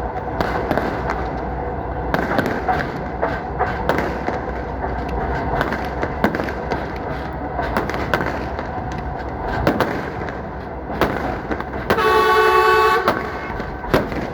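Train running on the track, its wheels and carriage rattling and clicking throughout, with one blast of the train horn lasting about a second near the end.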